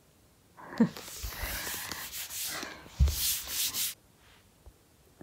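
Rustling and rubbing of something being handled close to the microphone, running for about three seconds and turning sharper and hissier near the end before stopping about four seconds in.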